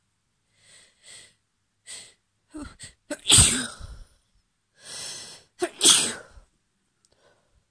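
A woman with a cold sneezing twice, about three seconds in and again about two and a half seconds later. Each loud sneeze comes after a few short, catching in-breaths.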